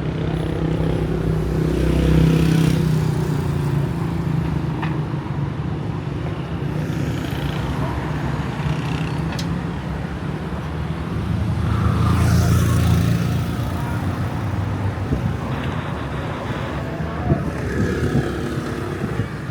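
Street traffic: motor vehicles running and passing by, with the sound swelling as vehicles go past about two seconds in and again around the middle.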